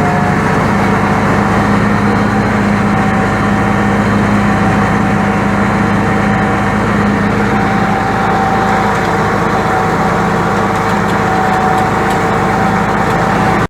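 International 1066 tractor's six-cylinder diesel engine running steadily and loudly, with a thin steady whine over the engine note.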